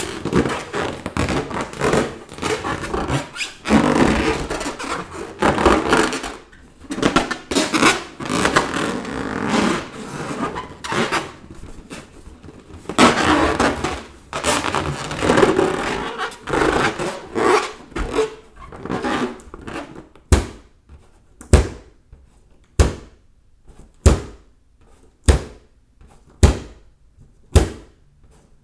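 Rubber balloons rubbing and squeaking as they are handled, followed near the end by a run of about seven sharp balloon pops, each a little over a second apart.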